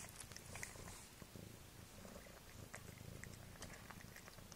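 Faint wet clicks and smacks of a cat chewing a piece of food off the floor, over a low uneven rumble.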